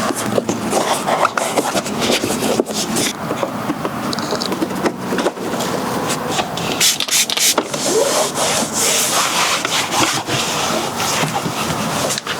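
Continuous rubbing and scraping with many short clicks and knocks throughout: hands working and handling parts.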